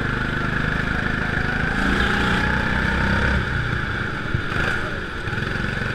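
Go-kart engine running under throttle, heard from on board the kart. It grows louder for about a second and a half near the middle, then eases off slightly.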